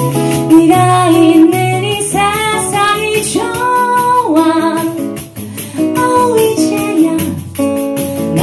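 A woman singing live over acoustic guitar accompaniment, with held notes that bend and waver in pitch.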